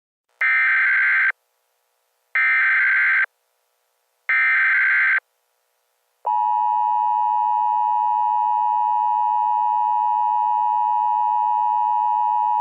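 Emergency Alert System header tones: three identical bursts of SAME digital data, each just under a second long and about two seconds apart, marking the start of an emergency alert. About six seconds in, the steady two-tone EAS attention signal begins and holds.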